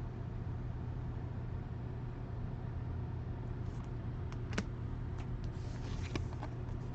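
Steady low background hum with a few faint clicks, one about four and a half seconds in and another about six seconds in.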